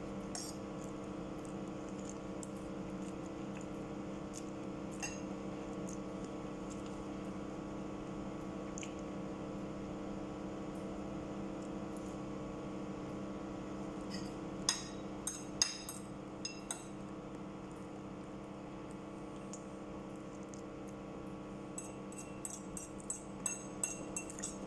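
Metal fork clinking now and then against a plate of noodles, a few times in the middle and in a quick run of light taps near the end, over a steady low hum.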